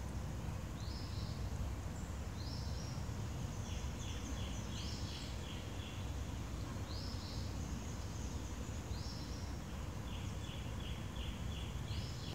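Wild birds singing over a low steady rumble. A short high call repeats every couple of seconds, and twice there is a quick run of about eight even chirps.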